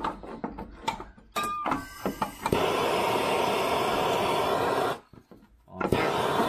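Handheld gas torch burning with a steady hiss that starts about two and a half seconds in, breaks off briefly near the five-second mark and resumes. It is preceded by a few clicks and knocks of handling.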